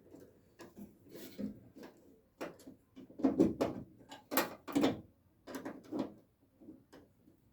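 Clicks and clunks of a 1968 Camaro's door latch and lock mechanism being worked by hand inside the door: a dozen or so separate knocks, the loudest few in the middle.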